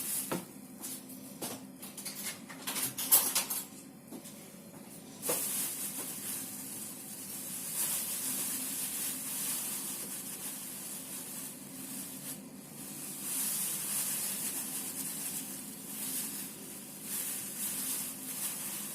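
A spoon scooping and scraping through flour and tipping it into a mug, with a few sharp taps in the first few seconds and then steady rubbing and hissing.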